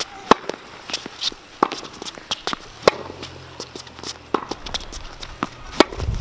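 Tennis rally: a serve struck sharply about a third of a second in, then more racket strikes on the ball, with ball bounces and shoe steps on the court between them.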